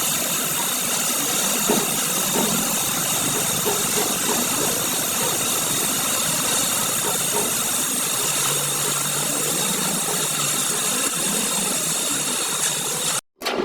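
Steady mechanical running noise from a motor or machine, with a dense whine across the high range; it cuts off abruptly near the end.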